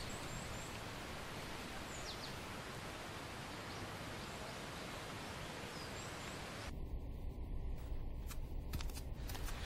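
Steady outdoor ambience, an even hiss with a few faint bird chirps. About two-thirds of the way through it cuts abruptly to quieter indoor room tone with a low hum and a few light clicks.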